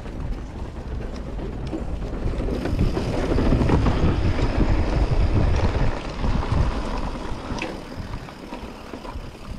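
Mountain bike riding fast downhill: tyres rolling over a wooden boardwalk, then rumbling down a dirt trail, with wind buffeting the handlebar-mounted camera's microphone and the bike rattling. The rumble is loudest in the middle, and there is a sharp clack near the end.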